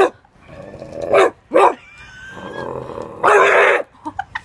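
A person imitating a dog: two short barks a second or so in, then a longer, rougher bark a little after three seconds.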